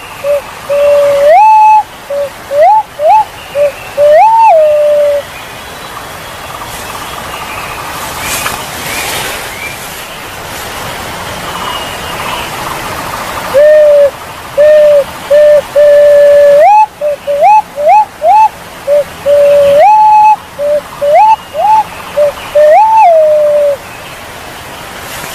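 Punai walik jawa pigeon calling in runs of short whistled notes that rise in pitch, some held out into longer level notes. The calls break off after about five seconds, leaving a steady hiss, and resume about halfway through.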